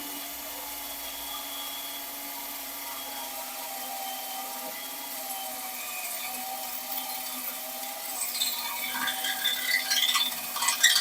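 Electric drill running and cutting, its motor tone steady with a slight waver. From about eight seconds in, irregular scraping and clattering come in as the bit works.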